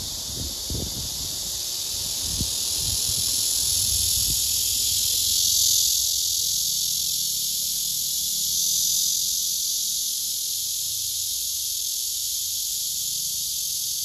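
Cicadas buzzing in a steady, high-pitched chorus that swells twice, with a few low thumps in the first couple of seconds.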